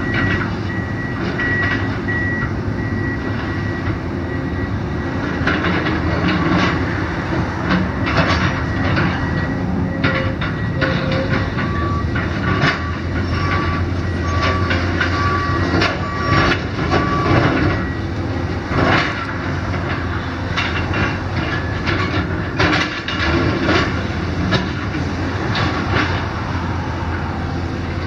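Diesel engine of an XCMG tracked hydraulic excavator running steadily under load. Over it come repeated crashes and clatter as its grapple breaks a concrete-block wall and the blocks tumble onto the rubble pile.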